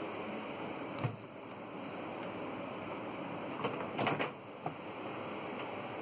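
Handling knocks in a kitchen: one knock about a second in, then a short cluster of clunks and clicks around four seconds in as the microwave door is pulled open and the plastic cup is handled, over a steady hiss.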